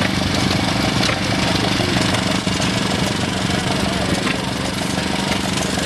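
Small engine running steadily with a fast, even putter, driving an antique engine-powered washing machine.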